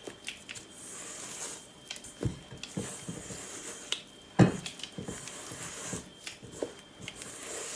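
Spatula folding almond flour and icing sugar into whipped egg-white meringue in a bowl: soft scrapes and squishes with scattered knocks of the spatula against the bowl, the loudest about four and a half seconds in.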